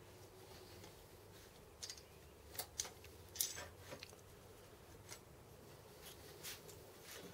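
A few light, sharp clicks and taps, scattered irregularly, over a faint steady low hum.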